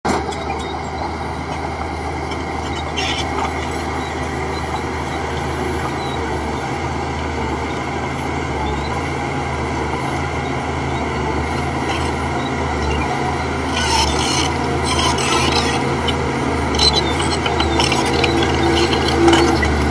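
Shantui bulldozer's diesel engine running steadily under a continuous rasping, grinding noise, with a few sharp clanks in the second half.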